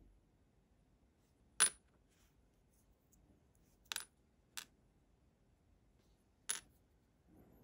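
Short lengths of thin aluminium tube clinking on a hard work surface: four sharp, ringing metallic clinks spread over several seconds.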